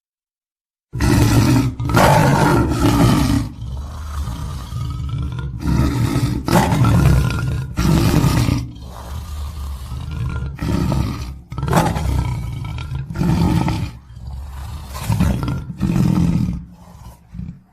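Tiger roaring: a long run of deep, loud roars one after another with short breaks between them, starting about a second in.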